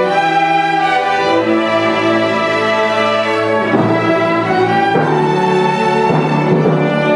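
Chamber orchestra playing a sustained passage led by bowed strings, the chords shifting a few times.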